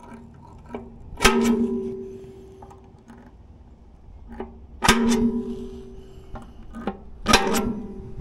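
Hammer striking a centre punch into the steel wrecker bed to mark bolt holes: three hard ringing blows, each followed by a metallic ring that dies away, and each preceded by a light tap.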